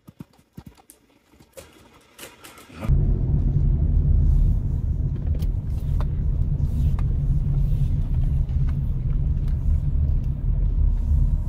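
Steady low rumble inside a moving car's cabin, setting in about three seconds in after a few faint clicks.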